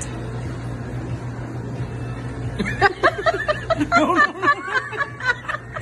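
Laughter: a run of short, quick giggles starting about three seconds in, over a low steady hum of room noise.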